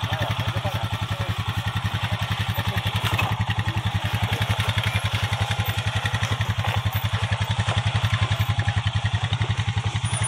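ATV engine running at a steady idle-like pace, an even low pulsing beat with no revving.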